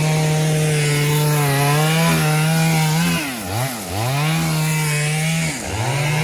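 Two-stroke chainsaw running at high revs, cutting wood. The revs drop and climb back twice, briefly in the middle and again near the end.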